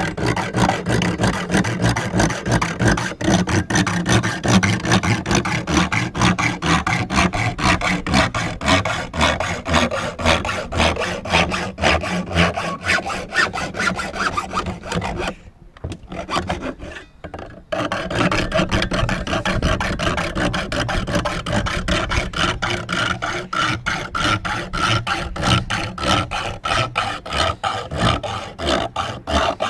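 Fine-tooth hacksaw sawing through a skateboard LED light unit along its cutout line: quick back-and-forth rasping strokes, stopping for about two seconds around the middle, then sawing on.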